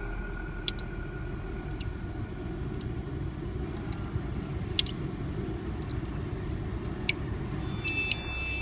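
A deep, steady rumble with a few sharp clicks scattered through it, a passage of an ambient sound-art soundtrack.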